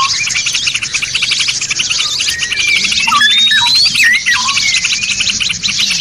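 Several songbirds singing together: a fast, dense, high chattering trill runs on throughout, while short notes swoop downward and a clear whistle rises about three seconds in and again at the end.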